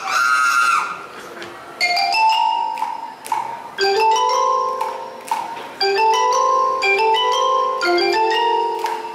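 Vibraphone played with mallets: four short runs of struck notes, each climbing in pitch and left ringing, about two seconds apart.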